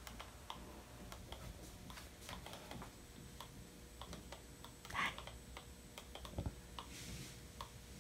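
Faint, irregular light clicks and taps, with a short, somewhat louder sound about five seconds in.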